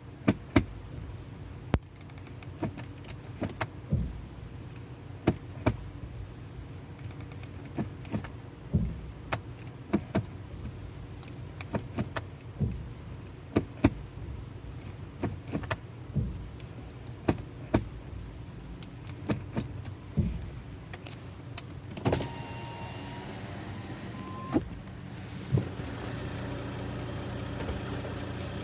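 A car idling with a long series of sharp clunks from the transmission, the abnormal shock that comes only when it is put into reverse. Near the end a whine comes in and the running sound grows steadier and louder.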